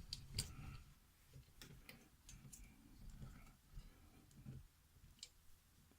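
Near silence broken by faint, irregularly spaced clicks and light knocks, about seven of them, over a low hum.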